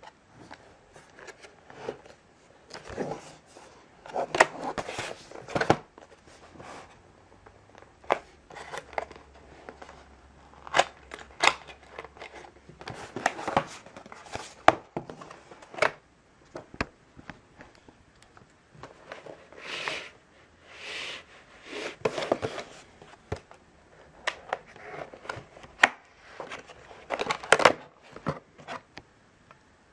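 Cardboard retail box being opened by hand: its flaps and seal tabs are pried and pulled loose, giving irregular scraping and rubbing of cardboard with frequent sharp clicks and small tears.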